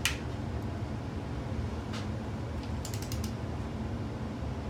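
Torque wrench working an ARP head bolt on an LQ4 6.0 cylinder head during the 50 ft-lb pass: a sharp click at the start, then a few light ratcheting clicks about two and three seconds in, over a steady low room hum.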